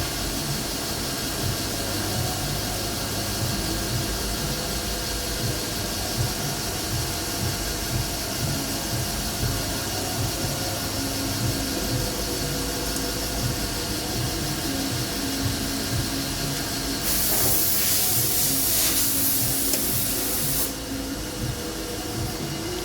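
Machine tool running steadily, a hum with several held tones under a constant hiss. A much louder spraying hiss comes in about 17 seconds in and cuts off suddenly about four seconds later.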